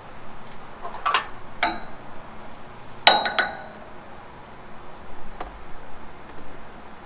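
A few sharp clicks and knocks of hard parts being handled, in two close pairs, the third the loudest.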